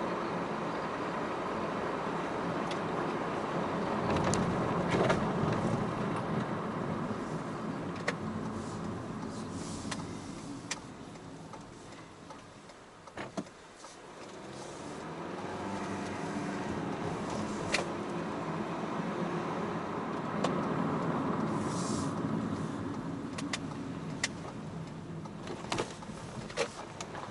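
A vehicle on the move, with steady engine and road noise recorded onboard. About halfway through it quietens as the vehicle slows, then builds again as it picks up speed, with scattered light ticks and clicks.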